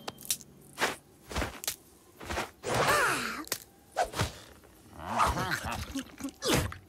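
Cartoon sound effects: a scatter of short knocks and soft thuds, with a short wavering vocal sound about three seconds in and a few wordless character vocalisations around five seconds in.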